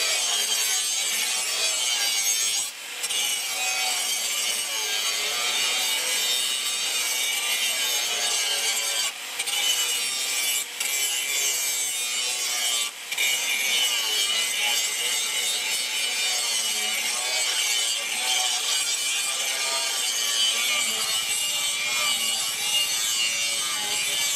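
Electric angle grinder with an abrasive disc grinding a steel knife blade: a steady high grinding noise that dips briefly a few times.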